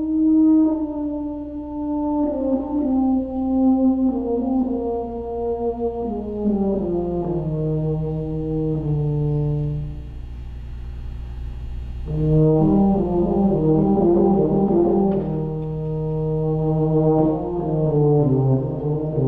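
Solo tuba playing unaccompanied: a line of held notes stepping downward over the first several seconds, a brief softer moment about ten seconds in, then a busier passage of quicker notes.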